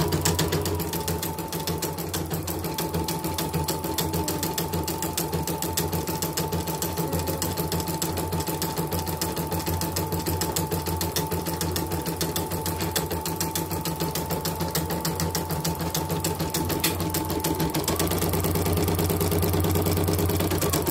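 CNY portable embroidery machine stitching at speed: a rapid, even run of needle clicks over a steady motor whine. It is running smoothly with no trouble on a test stitch-out after repair. Near the end the whine rises slightly and grows a little louder.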